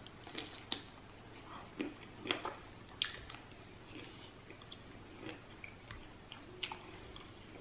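A person chewing a mouthful of shrimp: faint wet mouth clicks and squishes at irregular intervals.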